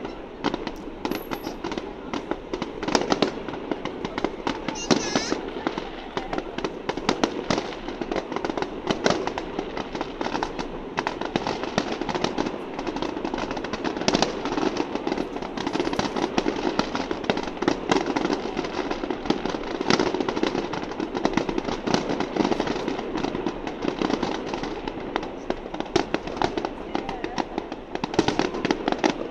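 Aerial fireworks display: a dense, continuous barrage of shell bursts and crackling, with no let-up, over a steady background of people's voices.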